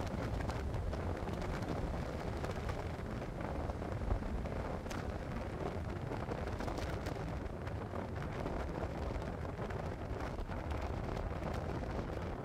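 Thunderstorm: a continuous low rumble of thunder, with wind buffeting the microphone and scattered short crackles.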